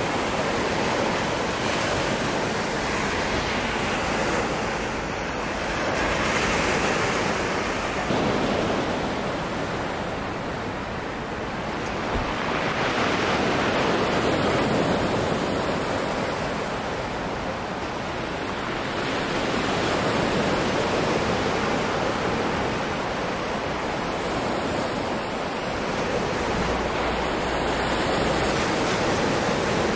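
Sea surf washing onto the shore: a steady rush of water that swells and eases about every seven seconds as waves break.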